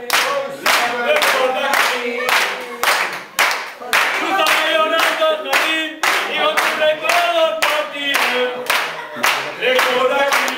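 A group of people clapping in a steady rhythm, about two claps a second, while singing a chant together.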